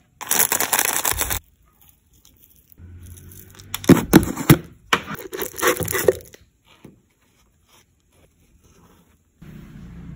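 A loud rustle lasting about a second, then crushed chocolate cereal pieces tipped from a scoop onto marshmallows topping a plastic cup, with a run of sharp, crisp clicks as the pieces land. A softer rustle comes near the end.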